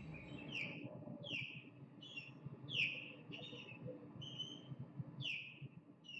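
A bird calling over and over: short, high, downward-sliding chirps about every half to three-quarters of a second.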